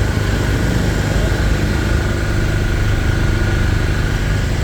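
Street traffic: car and motorbike engines running steadily as vehicles go by, with a continuous low rumble.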